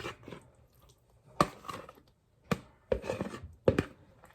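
A utensil scraping buffalo chicken dip out of a mixing bowl into a baking dish, knocking against the bowl four times with scraping between the knocks.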